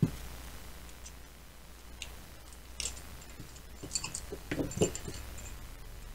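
Metal outboard crankshaft parts, its bearings and retaining clips, being handled: a sharp thump at the start, a few light clicks, then a cluster of clinks and knocks about four to five seconds in.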